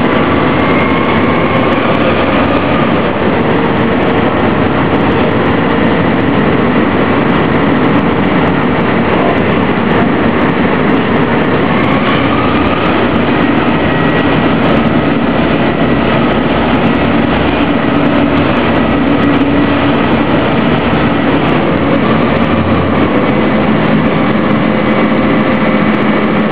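An IJ ferry's engine running steadily under way, heard from inside the passenger cabin as a loud, unbroken drone with a few faint humming tones.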